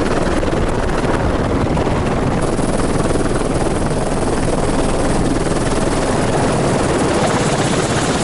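Helicopter landing on a helipad: loud, steady rotor and turbine engine noise, close up from a camera fixed to the fuselage, with a faint high whine joining about two seconds in.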